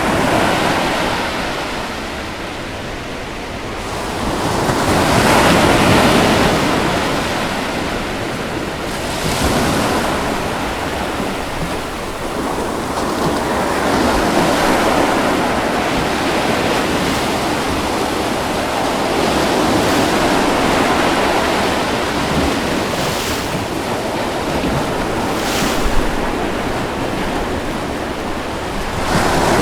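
Ocean surf washing in as a steady rushing hiss that swells and eases every several seconds as waves break, with a few brief sharper rushes.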